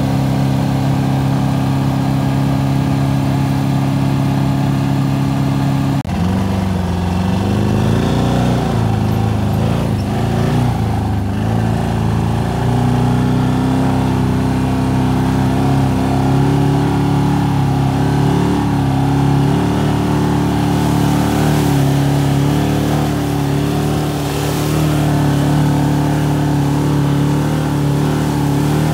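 ATV engine running at a steady pitch for about six seconds. After a sudden change it revs up and down unevenly, as under load while driving through mud.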